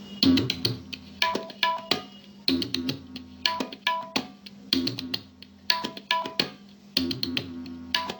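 Music played through a small Bluetooth speaker in a sound test: a sparse percussive track of sharp hits and short pitched notes in a repeating pattern, over a steady low hum-like tone.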